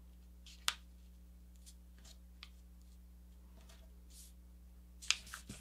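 Sheet of paper being handled and pressed flat on a cutting mat while a diagonal fold is lined up: faint rustles and a few sharp clicks, one about a second in and two near the end, over a steady low hum.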